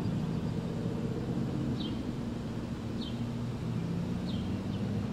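Steady low diesel drone of a LORAM rail grinder's engines running, with a bird's short falling chirps repeating every second or so.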